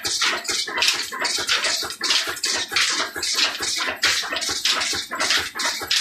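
Belt-driven stone flour mill (chakki) running off an old Ruston Hornsby diesel engine, its belts and pulleys turning. An even rhythm of rasping, hissing pulses, about two to three a second.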